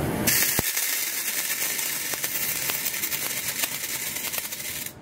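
A test sample of barium sulfate strobe composition with magnalium burns after ignition. It makes a steady hiss dotted with rapid, irregular pops, which are the strobe pulses. The hiss starts suddenly with a sharp click and cuts off just before the end.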